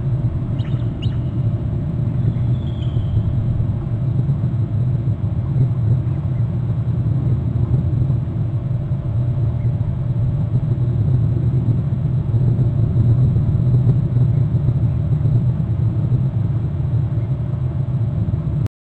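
Steady low rumble of wind buffeting an outdoor microphone, its loudness slowly swelling and easing.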